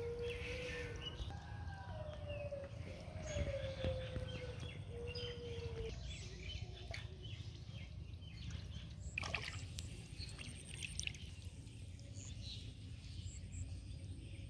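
Rural outdoor ambience: a low steady rumble with birds chirping. A drawn-out wavering call is heard over the first six seconds, and there are a few sharp clicks about nine seconds in.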